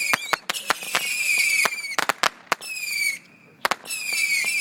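Saturn missile battery firing: whistling rockets one after another, each a high whistle falling slightly in pitch for about a second, with many sharp cracks and bangs between and over them. The firing eases briefly a little after three seconds.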